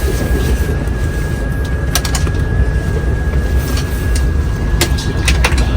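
Steady low rumble and a thin, steady high whine inside a Next-Gen Acela passenger car, with a few sharp clicks about two seconds in and again near the end.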